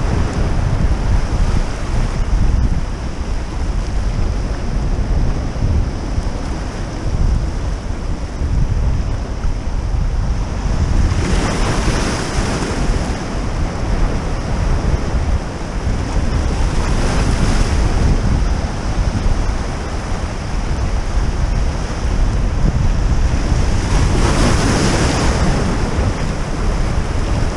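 Sea surf breaking and washing over shoreline rocks, with wind rumbling on the microphone. The noise is continuous, with three louder hissing washes of breaking waves, two in the middle and one near the end.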